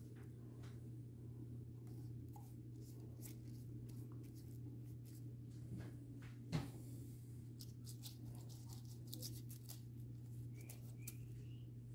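Silicone basting brush stroking and dabbing over the skin of raw pig heads on a wire rack: soft scattered brushing and tapping sounds over a steady low hum, with one sharper knock a little past halfway.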